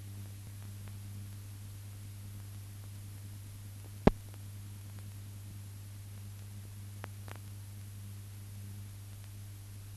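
Steady low hum with faint hiss from a silent newsreel's empty soundtrack, broken by one sharp click about four seconds in and two faint ticks around seven seconds.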